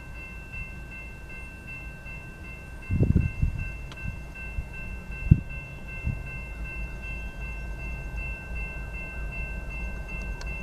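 Grade-crossing warning bells ringing steadily with an even pulse while the crossing gate arm lowers. Low rumbling gusts come in loudly about three seconds in, with a sharp low thump a couple of seconds later.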